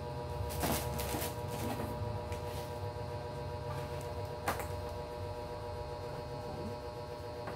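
Plastic wrapping rustling and crinkling as a handbag is pulled out of it and handled, with a sharp click about four and a half seconds in. A steady low hum runs underneath.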